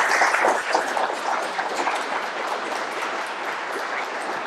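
Audience applauding, loudest at the start and easing off slowly.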